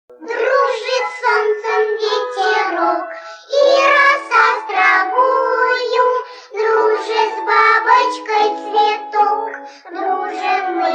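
Background music: a song with a high singing voice, sung in phrases with short breaks between them.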